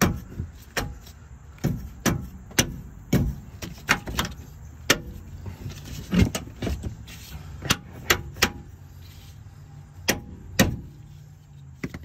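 Sharp metal knocks and clanks, about twenty in irregular succession with a short lull near the end, as a steel sway bar bushing bracket is knocked and worked against its mounting bolts to line the holes up.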